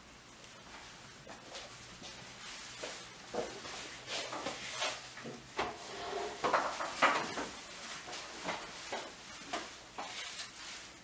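Scattered light clicks and knocks of forks and cutlery against plates, with a wooden dining chair moved and sat in about two-thirds of the way through.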